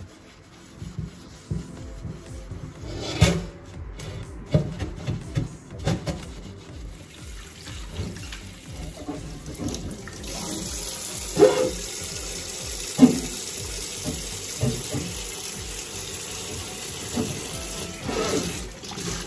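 Hands rubbing and handling a glass oven-door panel at a stainless steel sink, with scattered knocks. About halfway through, the tap comes on and water runs steadily into the sink, with a few sharp knocks of the glass against the sink.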